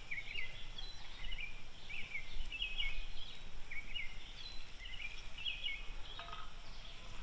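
A songbird singing short chirping phrases over and over, about one a second, over a faint steady outdoor background.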